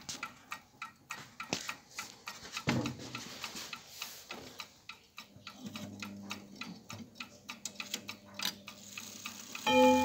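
Tempus Fugit Royal grandfather clock ticking steadily. Its chime starts to ring just before the end.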